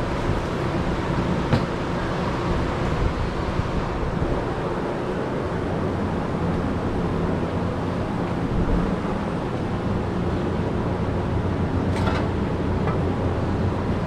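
Steady low hum and rumble of a running machine, with a couple of sharp clicks, one about a second and a half in and one near the end.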